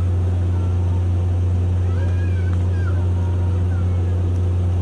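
Steady low hum of ship machinery running, unchanging throughout. A few faint, short bird calls that rise and fall in pitch come over it about two to three seconds in.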